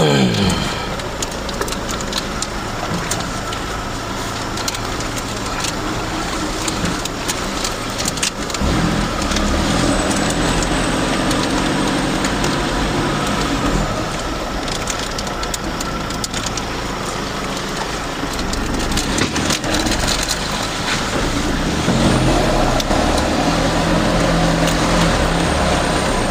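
Laden pickup truck's engine labouring in low gear over a rough, rutted dirt track, with the body and load rattling and knocking over the bumps. The engine revs drop right at the start and pick up harder about nine seconds in and again near the end.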